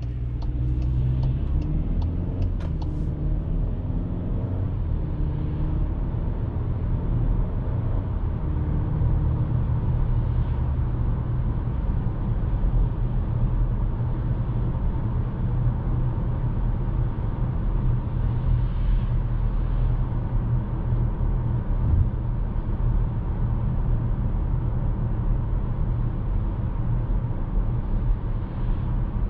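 Cabin sound of a Cupra Formentor's 1.5 TSI four-cylinder petrol engine pulling away, its note rising over the first ten seconds or so, then settling into a steady low rumble of tyre and road noise at cruising speed. A few sharp ticks sound in the first three seconds.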